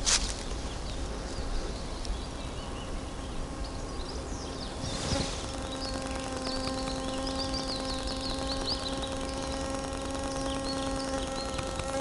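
A flying insect buzzing with a steady hum, starting about five seconds in and stopping near the end. Small songbirds chirp faintly and high-pitched through the middle.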